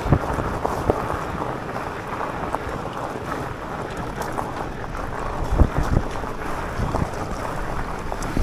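Electric mountain bike's tyres rolling over coarse gravel: a steady rushing noise mixed with wind on the microphone, with scattered knocks and rattles as the bike hits stones, the largest a little past halfway.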